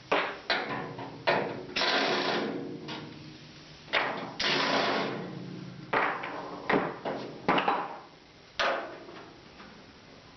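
Hard hammer blows on a quarter-inch steel plate bolted to the hinge mount of a 1967–72 Chevy truck door: about a dozen irregularly spaced strikes, some followed by a metallic ring. The blows are bending the door frame so the hinge pins line up.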